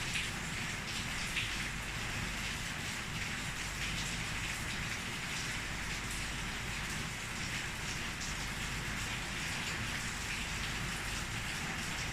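Steady rain falling: an even hiss of drops that keeps on without let-up.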